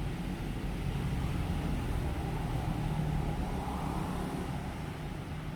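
Steady low background rumble, a little louder in the middle.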